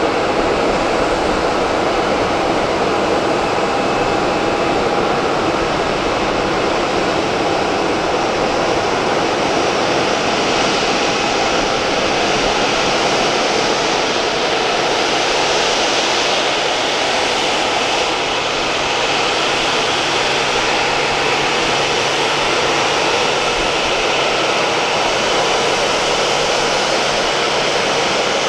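The twin CFM56-7 turbofan engines of a Boeing C-40C (a military 737-700) running at taxi power as the jet taxis past: a steady jet rush with a high whine, getting a little brighter about halfway through as the aircraft comes closer.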